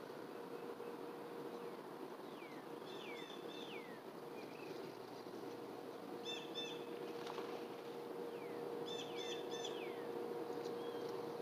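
Birds calling: several quick downward-sliding whistles and three short clusters of repeated chirps. Under them run a steady low hum and an even background hiss.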